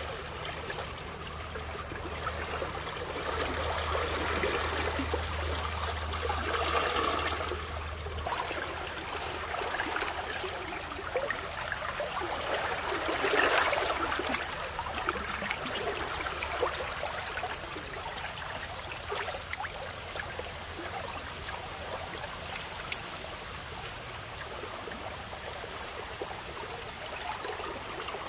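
Shallow stream running over stones, a steady rush of water with a louder surge about halfway through. A thin, steady high tone runs over it.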